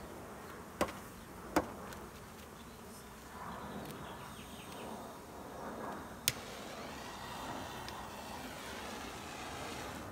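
Feral honeybees buzzing in a steady hum, with three sharp clicks: about a second in, a moment later, and past the middle.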